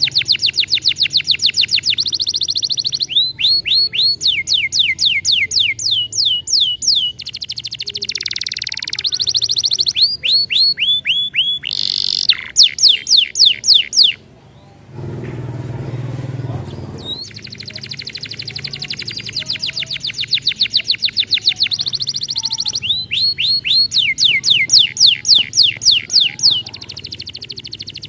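Domestic canary singing long, rapid trills of repeated sweeping notes, changing from one note type to another every second or two; the song breaks off for a few seconds about halfway through. A lure song meant to prompt other canaries to sing.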